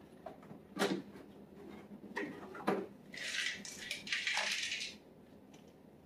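Hard plastic clicks as a Roomba i3's dustbin is unlatched and pulled out, then about two seconds of small beads rattling inside the bin as it is handled and opened.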